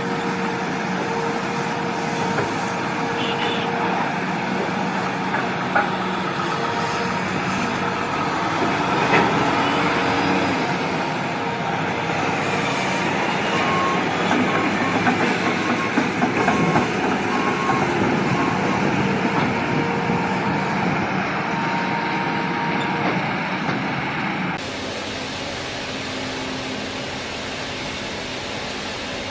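Large machinery running with a steady, dense mechanical noise, with a row of short beeps like a reversing alarm partway through. Near the end the sound cuts abruptly to a quieter, even hiss.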